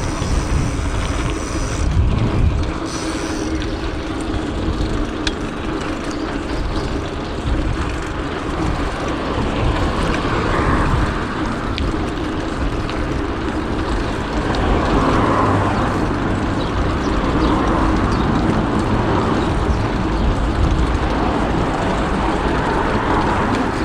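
City traffic and wind noise heard from a moving bicycle, a steady rumbling din with vehicles swelling past now and then.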